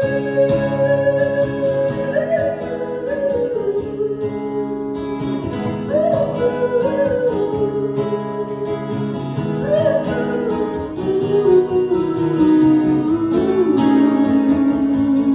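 A woman singing a slow melody of long held notes while strumming an acoustic guitar; the sung line steps gradually lower, ending on a long low note.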